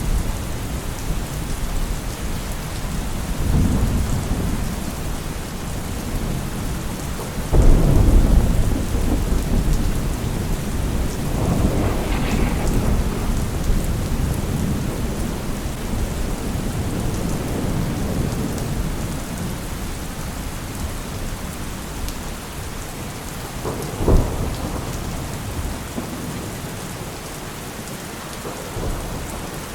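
Heavy rain falling steadily through a thunderstorm, with several rolls of thunder: a loud low rumble about a quarter of the way in, further rolls after it, and a short sharp crack about four-fifths of the way through.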